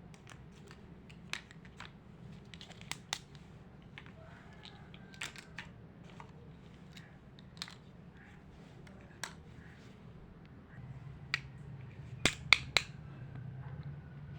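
Small hard plastic toy pieces clicking and tapping as they are handled and fitted together: scattered sharp clicks, with a quick cluster of three louder clicks near the end, over a low steady hum.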